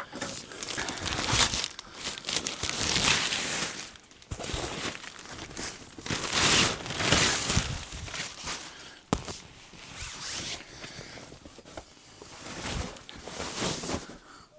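Plastic packaging crinkling and tearing as it is pulled off a new crib mattress, in several long swishing pulls, with a sharp snip about nine seconds in.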